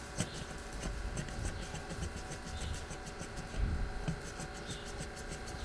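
Faint handling noise: scattered small clicks and scraping, with a dull low thump about two-thirds of the way in.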